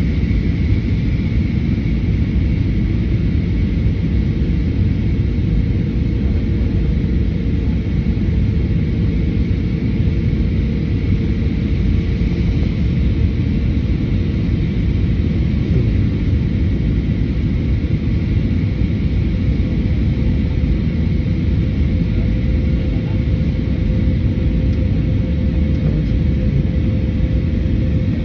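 Steady roar of engines and airflow heard inside a jet airliner's cabin in flight, with a faint steady hum over it.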